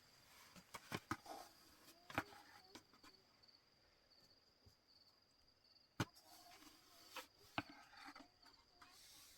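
Near silence: a faint, steady, high-pitched whine with a few scattered sharp clicks, the loudest about two seconds and six seconds in.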